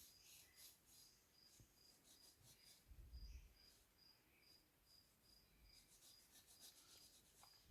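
Near silence with a faint cricket chirping in an even pulse, about three chirps a second. A low thump about three seconds in.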